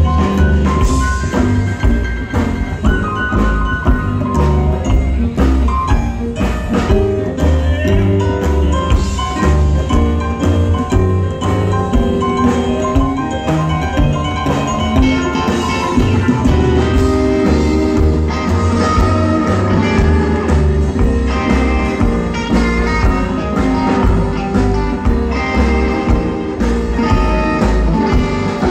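Live rockabilly band playing an instrumental break: an upright bass walking a steady low line under an electric guitar lead, with drums keeping time.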